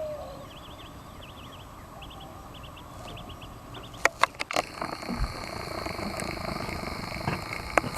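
Repeated high chirping calls from a small wild animal, coming in short groups. A few sharp clicks and knocks about halfway through, then a faint steady high whine.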